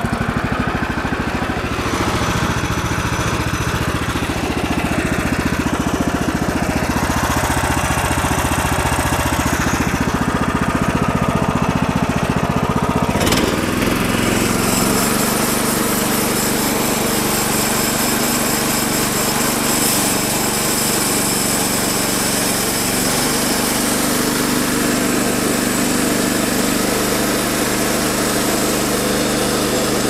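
Gas engine of a Woodland Mills HM126 portable band sawmill running at a low, steady speed, then throttled up about 13 seconds in with a click. It then runs steadily at full speed as the band blade makes the first cut along a white oak log.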